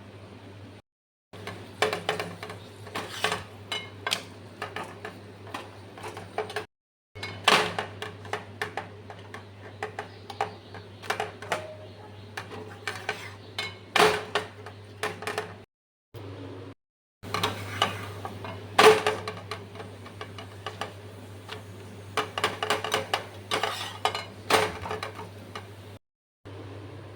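Metal utensils clinking and scraping against cooking pots and pans in quick irregular strokes, as in stirring and handling cookware, over a steady low hum. The sound drops out abruptly a few times.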